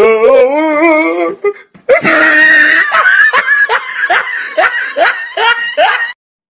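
Loud laughter: a wavering drawn-out laugh, then a run of repeated bursts about two or three a second that cuts off suddenly shortly before the end.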